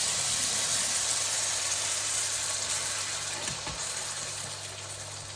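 Sizzling in a hot frying pan of tomatoes and chillies as a full tin of baked beans goes in, the hiss fading slowly.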